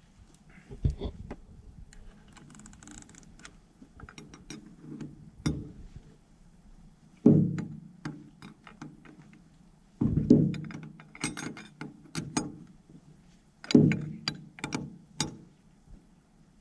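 A socket ratchet clicking and metal clunking as a nut on a vacuum pump's pulley is worked, with a combination wrench holding the pulley. Three heavy clunks come at intervals of a few seconds, and runs of quick ratchet clicks fall between them.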